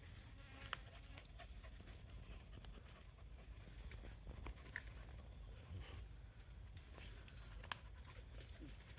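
Faint, scattered scratching and clicking of dogs digging in soil at a rat hole, over a steady low rumble, with a couple of brief high chirps in the middle.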